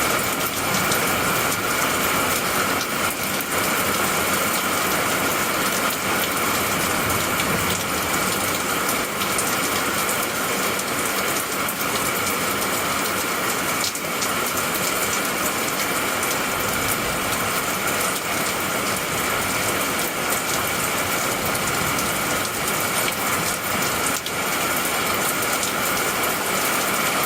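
Steady heavy rain, a dense unbroken crackle, with a continuous high-pitched drone running through it.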